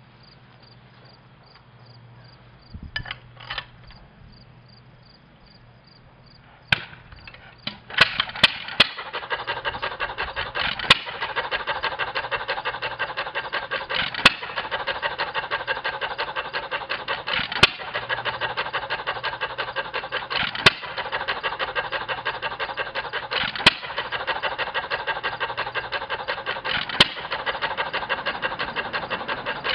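1922 Novo Model S 3 HP single-cylinder hit-and-miss gas engine, on buzz-coil ignition, starting up. It catches about eight seconds in with a quick few firings, then runs hit-and-miss: a sharp firing bang roughly every three seconds, with a steady fast clatter as it coasts between firings.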